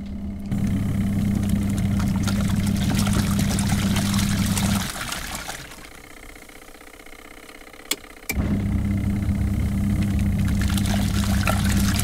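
Gizmos TG910 portable washing machine on its wash cycle: the motor hums steadily while the water and clothes churn and slosh in the tub. The motor stops for about three seconds, then, after a click, starts up again.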